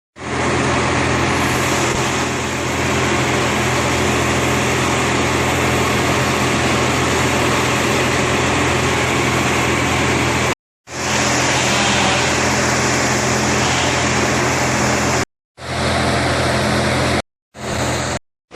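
Heavy machinery engine running steadily with a loud hiss of noise over it, cut off abruptly three times between short segments.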